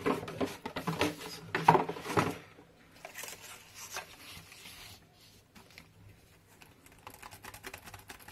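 Knocks and rustling as the box, cables and keyboard are moved about on the table for the first couple of seconds. Then, from about seven seconds in, the Raspberry Pi 400's built-in keyboard is typed on in a fast run of light key clicks; the keys do not make much sound.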